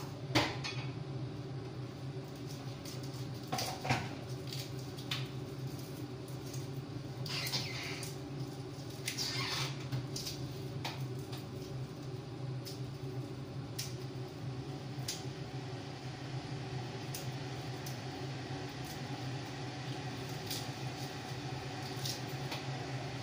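Kitchen room tone with a steady low hum, broken by scattered clinks and knocks of dishes being handled at a sink and a couple of short rushes of noise near the middle.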